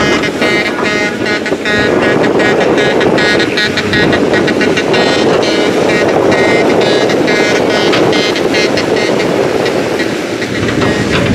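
Kobelco hydraulic excavator's diesel engine running under load as the machine swings and digs, with a high whine that pulses on and off over the engine noise.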